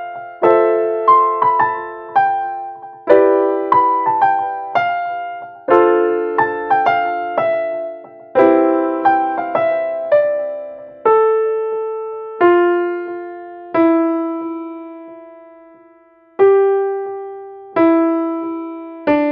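Background piano music: a slow, gentle melody of struck notes and chords that each fade away. The notes come further apart in the second half, with long held notes and one short lull.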